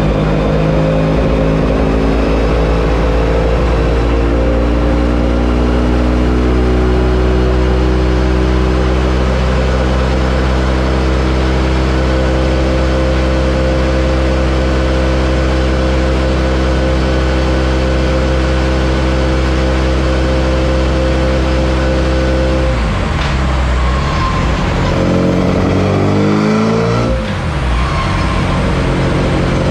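Classic Mini's full-race Swiftune 1380 cc engine on twin-choke Weber 45 DCOE carburation, running loud and held at steady revs on a rolling road. About two-thirds of the way in the revs change and swing up and down, with a brief dip in level, before steadying again.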